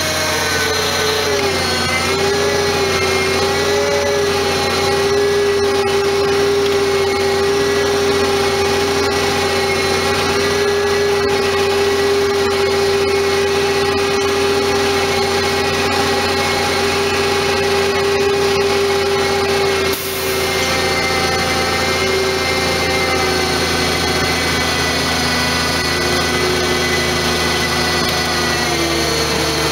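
Oilfield bed truck's winch hauling a loaded cement bulker, driven by the truck's engine: a steady high whine over a low engine hum. The whine briefly dips and shifts in pitch about two-thirds of the way through.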